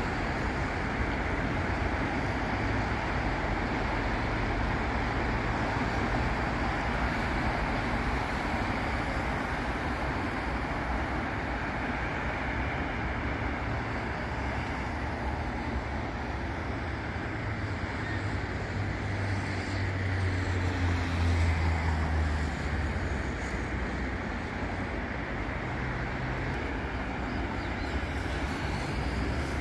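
Steady road traffic on a busy city avenue: a continuous wash of passing cars and tyre noise. A heavy vehicle's low engine hum swells and passes about two-thirds of the way through.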